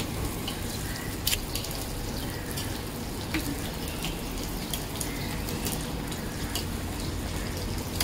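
Parathas frying: a steady sizzle with scattered crackles and pops.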